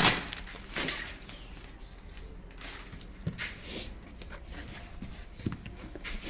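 Packaging of a new loudspeaker being opened and handled: intermittent rustling of cardboard and wrapping with a few light knocks.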